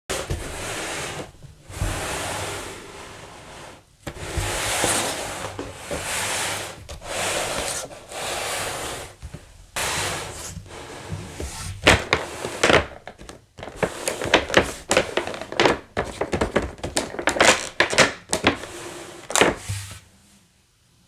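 Packaging being handled: rustling, scraping swishes, then a dense run of sharp clicks and knocks, stopping just before the end.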